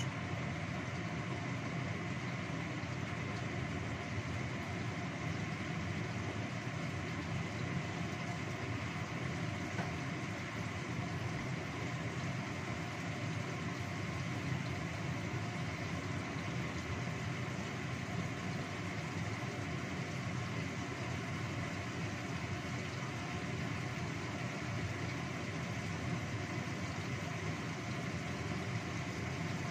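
Steady, even hiss of gas stove burners with covered pots cooking on them, the lidded pot simmering and steaming.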